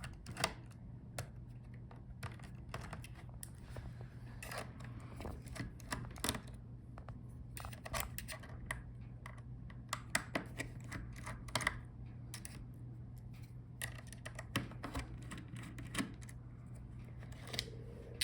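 Scattered light clicks and scrapes of a screwdriver and small screws as the hinge screws are taken out of a laptop, over a steady low hum.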